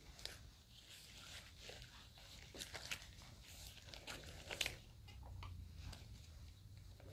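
Faint wet, scratchy strokes of a tint brush working softening (straightening) lotion through sections of wet, curly hair, with small crackles in between. This is the softening stage of a Korean magic straight perm. The strokes come unevenly, and the sharpest one is about four and a half seconds in.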